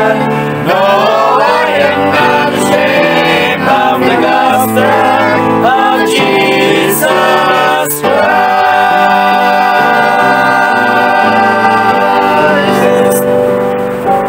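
Gospel song with singers and instrumental backing, singing its final lines over a beat about once a second. About halfway through, it settles into a long held closing chord that fades near the end.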